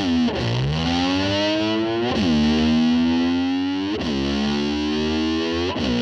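Distorted electric guitar music: long sustained notes that slide slowly upward in pitch, drop back sharply about two and four seconds in, then hold.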